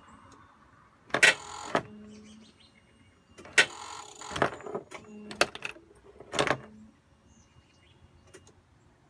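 Polaris Ranger clicking when the key is turned, about six sharp clicks with short low hums between them and no engine cranking over or starting.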